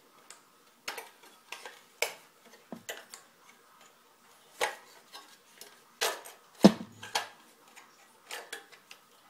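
Irregular clicks and clacks of the plastic and metal parts of an Xbox component being pulled and pried apart by hand, the loudest knock about two-thirds of the way through.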